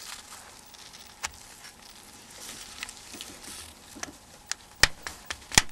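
Small sharp clicks and faint handling noise from a Nokia N95 slider phone's plastic housing as it is slid open by hand: one click about a second in and a few louder ones near the end.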